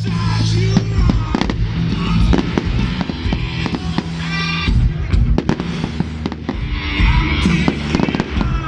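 Fireworks bursting and crackling in quick succession at a public display, with music playing under the bangs.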